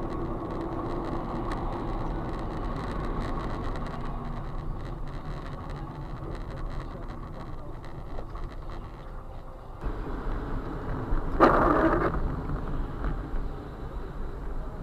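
Steady engine and road noise of a moving car, heard from inside. The noise changes about ten seconds in, and a short louder sound follows a moment later.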